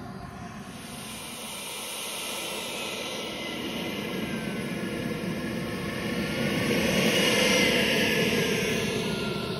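Xicoy X45 turbine of a radio-controlled model jet running as the jet taxis past. It is a whine over a rushing noise that grows louder to a peak about eight seconds in, its tones gliding in pitch as it goes by, then eases off.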